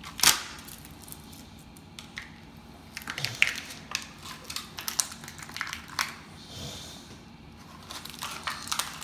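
Toy packaging being handled: crinkling and rustling of plastic and cardboard with scattered clicks and taps. The sharpest click comes just after the start, and the rustling is busier in the middle and near the end.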